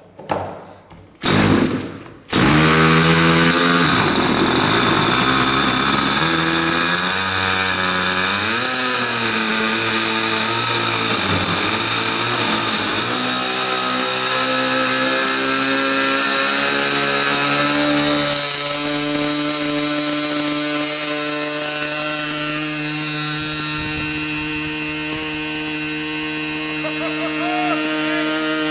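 MVVS 49 8cc two-stroke glow engine with a tuned pipe fires up about two seconds in after a couple of brief bursts, then runs at high speed on a test stand. Its pitch wavers unevenly for the first several seconds before settling into a steady run, stepping up slightly around eighteen seconds in; the needle is set very rich.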